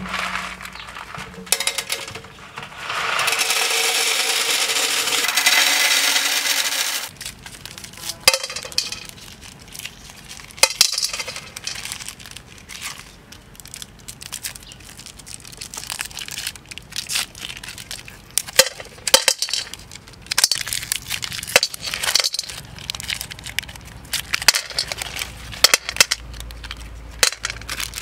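River snails poured from a plastic bucket into a glass tank: a loud rattle of many shells hitting the glass that lasts about four seconds. Then come scattered clicks and crinkles as Mentos are torn from their wrappers and dropped into a metal wok.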